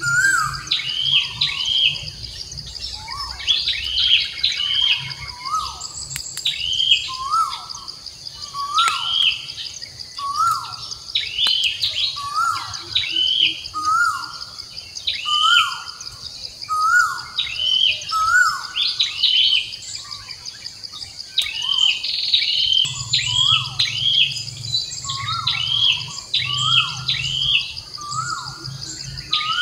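Bird chirping, the same short call repeated over and over at about one to two a second, each a falling note with a higher arched note, over a steady high insect drone.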